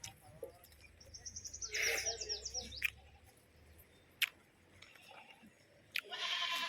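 Small bird singing: a quick run of short, high, falling chirps about a second in. A sharp click follows near the middle, and a hoarse noisy burst comes near the end.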